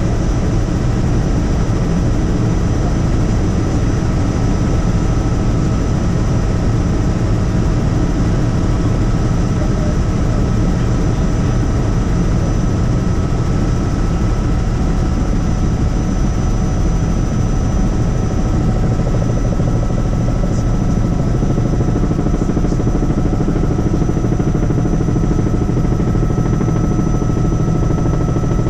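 Helicopter in flight: steady, loud rotor and engine noise with a thin, steady high whine on top.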